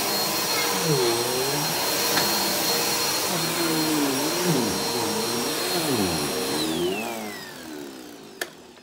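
Vacuum cleaner running steadily with a high motor whine over its airflow hiss. About seven seconds in it is switched off: the whine glides down and the noise fades as the motor spins down, with a sharp click near the end.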